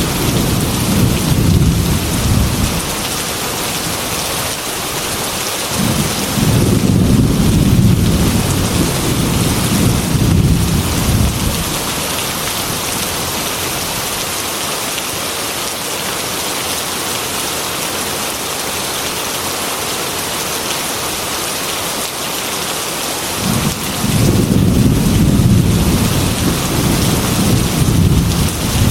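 Heavy rain falling steadily with three long, low rolls of thunder: one fading out in the first few seconds, one about six seconds in, and one starting near the end.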